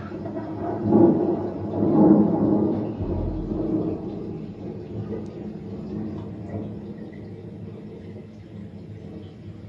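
Deep rumbling growl of the Fauchi dragon figure's sound effect. It swells twice in the first couple of seconds, then settles into a lower rumble that slowly fades.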